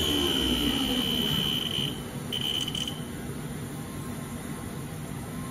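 Haas VF-0E CNC mill's spindle spinning down, its motor whine falling in pitch as the speed drops. A steady high tone stops about two seconds in, and a quieter steady hum from the machine remains.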